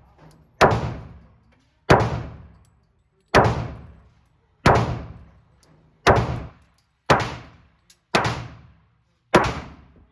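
Glock pistol fired in slow, steady succession: eight shots about one to one and a half seconds apart, each one ringing out and fading over most of a second.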